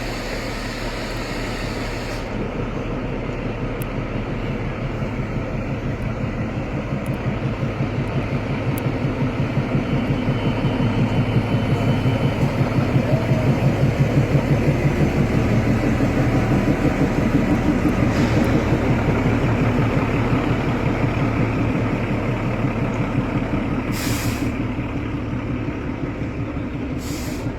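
Locomotive engine running with a steady, fast throb, growing louder to a peak about halfway through and then easing off. Two short sharp hisses come near the end.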